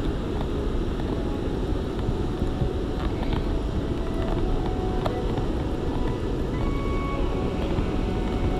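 Steady low rumble of wind on the microphone, mixed with sea surf.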